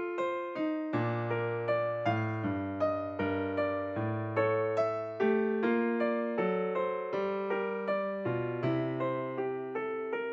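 Background music: a bouncy piano tune in the style of silent-film accompaniment, with a steady beat of plucked-sounding notes and a bass line, about two notes a second.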